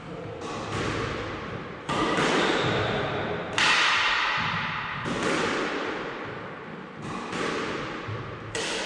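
Squash ball being driven in a rally drill: sharp racket-and-wall cracks about every second and a half, each one echoing off the court.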